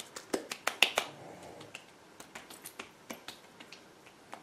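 Hands patting toner into the skin of the face and neck: light, sharp slaps, a quick run of them in the first second, then sparser ones.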